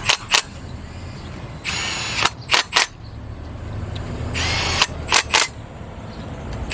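Power drill/driver run in short bursts as the bolts are driven in, each burst about half a second with a high whine, followed by two quick short spurts. The pattern repeats about every two and a half seconds.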